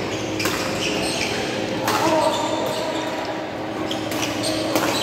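Badminton rally: rackets striking a shuttlecock with several sharp hits a second or more apart, echoing in a large hall.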